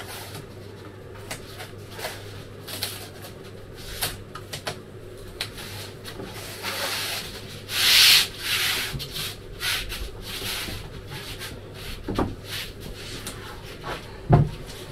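Hands rubbing and pressing a sheet of self-adhesive polyethylene foam flat onto wooden boards: scattered scrapes and rustles, with a longer, louder smoothing rub about eight seconds in. A dull thump comes near the end.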